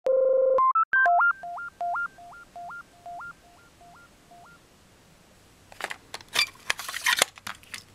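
Short electronic intro jingle of beeping tones: loud steady notes, then a two-note figure stepping up and down that repeats and fades away. About six seconds in, a plastic cassette case is handled, giving a quick run of clicks and rattles.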